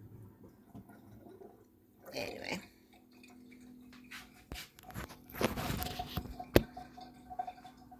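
Dishes and silverware being handled: scattered clinks and rattles from about halfway through, with one sharp clack about two-thirds of the way in.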